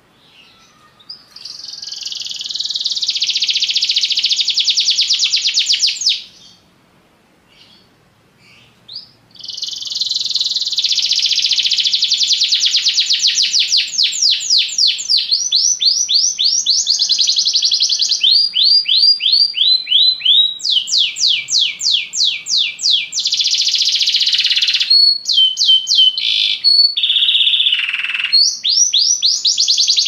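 Domestic canary singing: rapid trills of repeated high, sweeping notes. A first phrase of a few seconds is followed by a pause of about three seconds, then a long unbroken song whose trills change speed and pitch from phrase to phrase.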